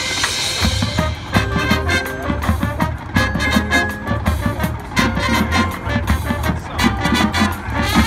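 High school marching band playing: brass chords over driving percussion. The full band's heavy low drum hits come in about half a second in.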